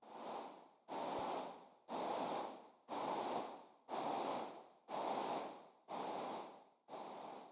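Short bursts of signal-generator noise, one a second, each passed through reverb and a vowel filter set to "ooh". Each starts suddenly and fades away in a reverb tail, making a soft breath-like filtering sound.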